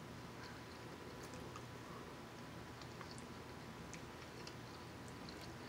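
Faint close-up mouth sounds of a person chewing cornbread, with small soft clicks over a steady background hiss.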